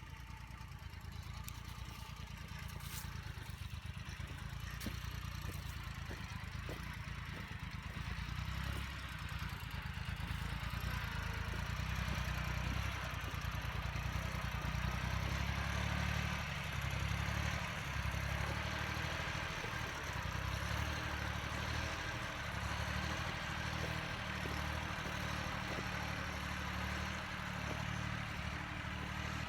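Mini tractor engine running steadily while working a rotary tiller, growing louder about a third of the way in and staying loud.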